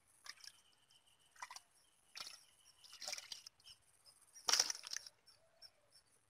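Wet mud squelching and scraping as it is dug out of a waterlogged hole by hand and with a short stick: a handful of separate squelches, the loudest about four and a half seconds in.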